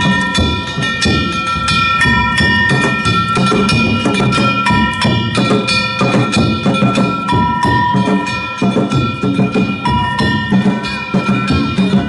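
Danjiri festival music (narimono): hand-held gongs struck in fast, continuous strokes, ringing on several metallic tones, over taiko drum beats.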